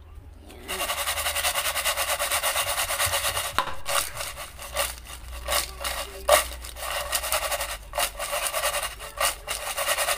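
Cut potato sticks being tossed and rubbed together in a bowl while they are mixed with salt: a dense rustling clatter that starts about a second in and, from about four seconds on, breaks into separate sharper shakes.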